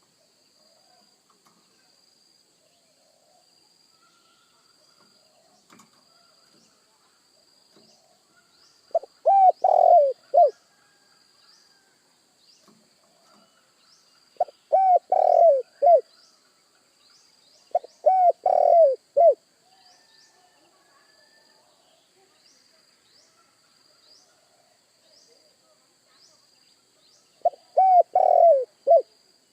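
Spotted dove (tekukur) cooing: four phrases of several coos each, a few seconds apart, over a faint steady high-pitched insect hum.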